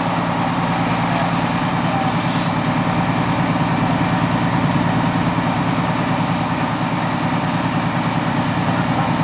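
Heavy diesel engine running steadily at idle, with a short hiss about two seconds in.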